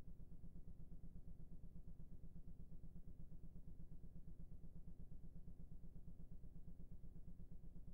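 A low, steady hum with a fast, even flutter in loudness and no other sound above it.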